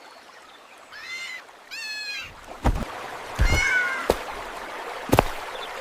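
Kittens mewing: two short high mews, then a longer one a little after the middle, with several sharp knocks in between.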